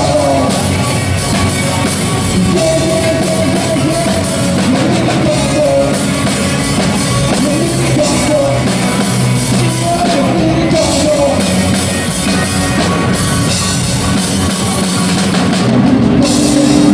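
Rock band playing live: drum kit, electric guitars and bass together, with a note held near the end.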